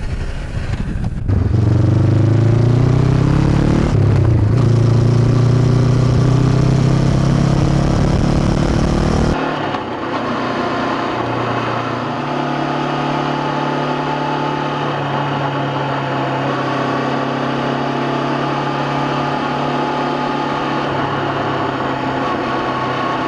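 Honda CB500X parallel-twin motorcycle engine through a Staintune exhaust, pulling away with its pitch climbing, breaking once about four seconds in as it shifts up, then climbing again. About nine seconds in the sound drops abruptly to a quieter, steady engine note that holds to the end.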